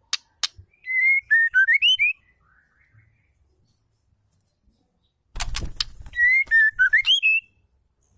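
Female white-rumped shama calling: a short whistled phrase that wavers, dips, then rises sharply, given twice. Each phrase comes after sharp clicking notes, a dense cluster before the second.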